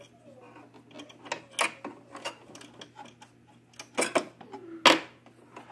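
Scattered clicks and knocks of parts of a Singer Talent 3323 sewing machine being handled, with the loudest knocks about four and five seconds in.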